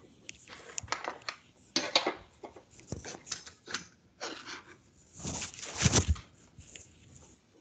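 Irregular rustling, scraping and clicking handling noise, picked up by an open microphone on a video call. The loudest stretch comes about five to six seconds in.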